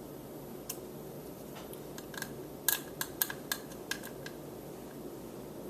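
A run of about ten sharp little clicks and taps of plastic as a small thermometer and its suction-cup fitting are handled, loudest and closest together in the middle, over a steady low hum.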